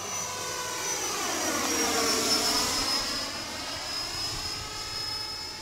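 90 mm electric ducted fan of a Freewing Eurofighter Typhoon RC jet whining in flight as the model passes by, growing louder to a peak about two seconds in and then easing off.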